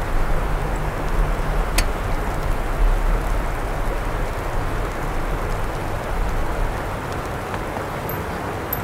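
Outdoor ambience during heavy snowfall: a steady hiss over a low, uneven rumble that eases near the end, with one sharp tick about two seconds in.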